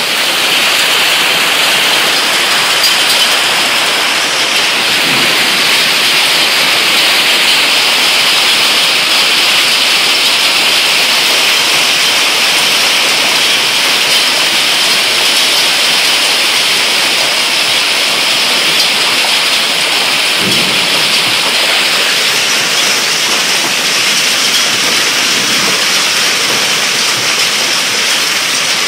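Hailstorm: hail and heavy rain pelting down in a dense, steady, loud hiss, with a couple of faint low thuds.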